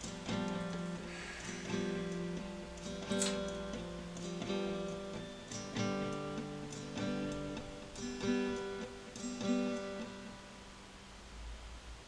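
Acoustic guitar strumming chords, each strum ringing on before the next, with the playing dying away near the end.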